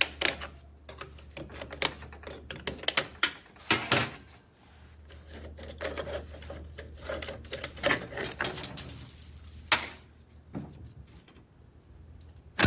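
Irregular clicking and clinking of metal transmission parts being handled and set down during teardown, with a few louder knocks about four and ten seconds in, over a steady low hum.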